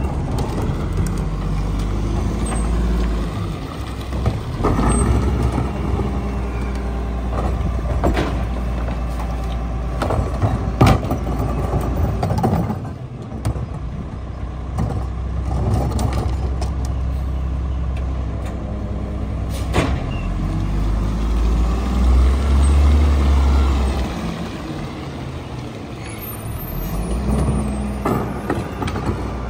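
Diesel engine of a Mack MR rear-loader garbage truck running while the Leach packer compacts the load. The engine rises in speed for a couple of seconds about two-thirds through, and sharp knocks come several times as carts are tipped and banged against the hopper.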